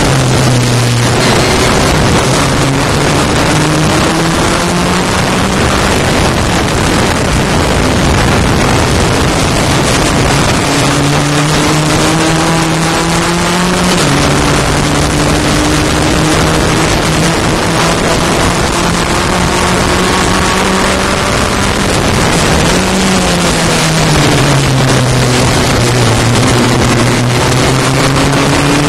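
Racing car engine heard from the cockpit through heavy wind hiss. The engine note climbs, dips about halfway through and holds, then falls as the car slows for a corner and climbs again near the end.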